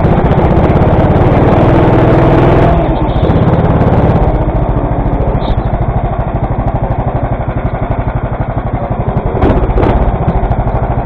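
Go-kart engine running loud under power for about three seconds, then backed off as the kart slows into the pit lane, settling to a low, rapid even pulsing as it creeps to a stop in line.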